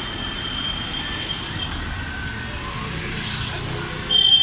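City road traffic: a car passing close, over the general noise of traffic, with a thin steady high whine. Near the end, a much louder high-pitched steady tone sets in abruptly.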